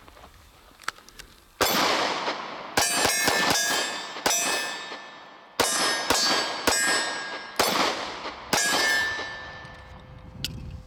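Ruger SR9c 9mm pistol fired about ten times at an unhurried pace, each report followed by a ringing tone, typical of rounds striking steel targets. A small click near the end as the empty magazine drops free.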